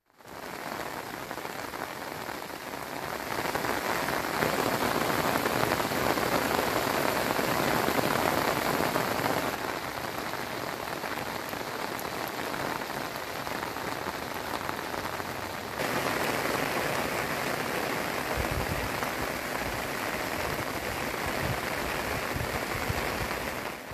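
Heavy rain pouring onto flooded paddy fields, a steady hiss of drops striking standing water. Its level steps up and down a few times, and a few low bumps come in near the end.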